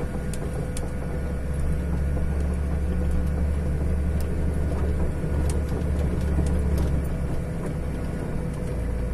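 Semi-truck's diesel engine running under load, heard from inside the cab as the truck pulls up a steep, loose dirt slope, with scattered light clicks. The engine note weakens about three-quarters of the way through.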